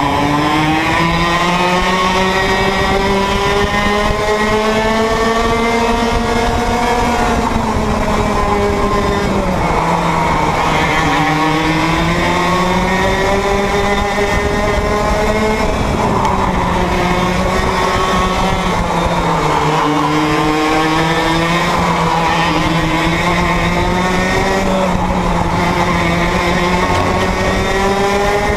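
Onboard sound of a 100cc two-stroke kart engine at racing speed. The engine note climbs steadily as the kart accelerates, then drops sharply when the driver lifts and brakes for a corner, about four or five times over the run.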